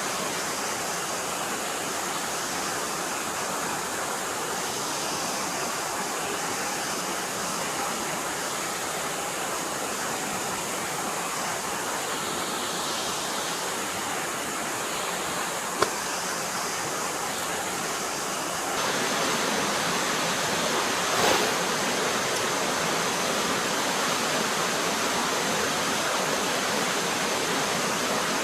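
Forest stream flowing steadily, with one sharp click a little past halfway. About two-thirds of the way through the water becomes louder, with a brief swell soon after.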